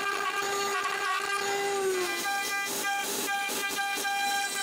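CNC router spindle running with a steady high whine as its bit carves a cherry-wood plaque, with rasping cutting noise over it. About two seconds in the pitch dips slightly and the sound turns rougher.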